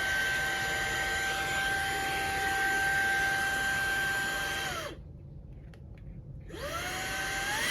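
Fanttik Slim V8 Apex cordless air duster/vacuum's small high-speed motor running with a steady high whine. About five seconds in it winds down and stops. After a short pause with a few small clicks, it spins back up to a steady, higher-pitched whine as it is switched to another mode.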